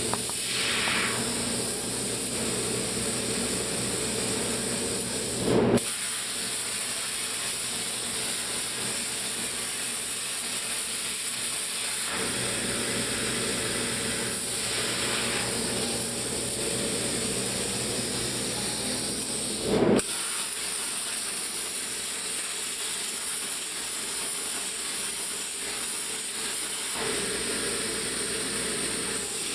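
CNC plasma cutter running: a steady loud hiss of the plasma arc and its air. The sound turns briefly louder twice.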